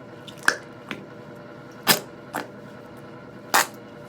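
Noise putty being pushed into its plastic tub, giving about five short, sharp squishes and clicks, the loudest about two seconds in and near the end, without a full fart sound: the putty isn't farting on these tries.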